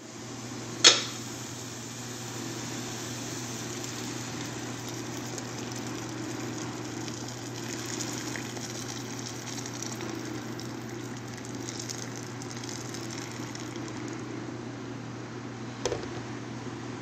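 Chicken simmering in broth in a stainless steel pot, a steady boiling sound over a low hum. A sharp knock about a second in, and a smaller one near the end.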